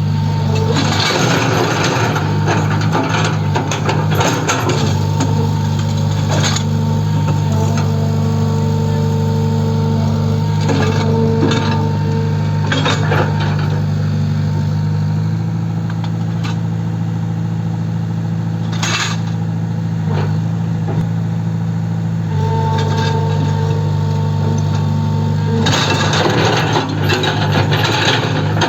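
Tata Hitachi Zaxis 120 excavator's diesel engine running steadily, with irregular metallic clanks and knocks over it, thickest at the start and near the end.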